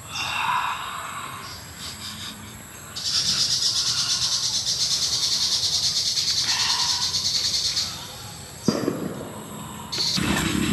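Insect buzzing: a high, fast-pulsing drone starts about three seconds in and stops about five seconds later. A sharp click follows near the end.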